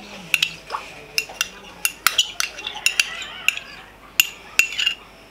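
A metal teaspoon tapping and clinking against a small plastic cup while scooping out jam: a dozen or so light, irregular clicks, thinning out near the end.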